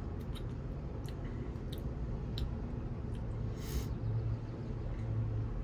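A milkshake being sipped through a metal straw, with a few small mouth clicks and one short hiss about halfway through. Under it runs a steady low outdoor rumble.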